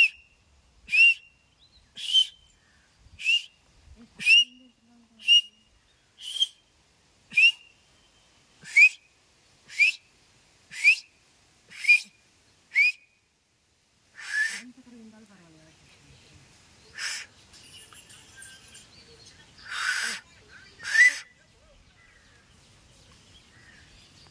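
Person whistling with fingers in the mouth: about a dozen short, sharp blasts, roughly one a second, each with a quick upward slide in pitch. After that come a few breathier, more scattered blasts.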